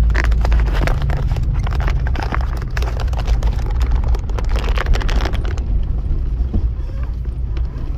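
4x4 on 35-inch tyres driving slowly over a rough dirt trail, heard from inside the cab: a steady low drone of engine and tyres with a busy clatter of rattles and knocks from the bumpy ground.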